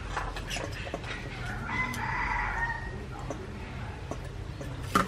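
A rooster crows once, about two seconds in, a call of about a second. Near the end comes a sharp metallic clink as metal tongs strike the hot pot's charcoal chimney.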